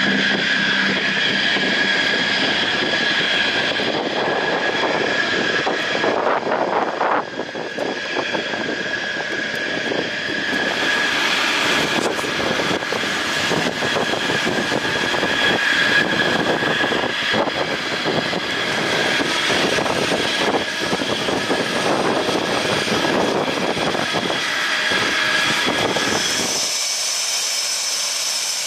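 F/A-18 Hornet jet engines (twin General Electric F404 turbofans) running on the ground: a steady turbine whine over a loud rushing noise. Near the end the low rumble drops away, leaving a higher, thinner whine.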